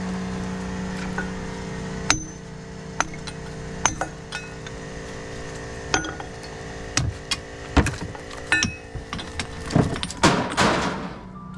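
Scattered metallic clinks and knocks as scrap transformer parts are struck and handled, with a denser scraping clatter near the end, over a steady low hum.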